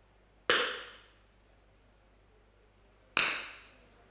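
Two .22 smallbore target rifle shots, about two and a half seconds apart, each a sharp crack with a short reverberant tail.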